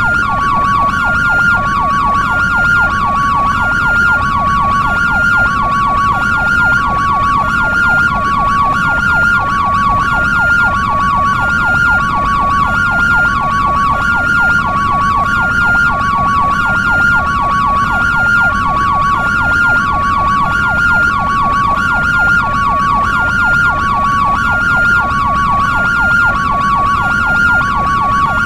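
European-style electronic ambulance siren sounding hi-lo and yelp together: a steady two-tone alternation between a higher and a lower pitch, over a fast, repeating yelp wail.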